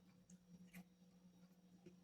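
Faint chewing and mouth sounds: a few soft, wet clicks over a steady low hum.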